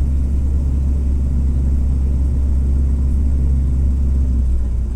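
Cummins ISF 3.8 four-cylinder turbo-diesel of a Volare W9C minibus running under way, heard from on board as a loud, steady low drone. Its note changes and the level dips slightly near the end.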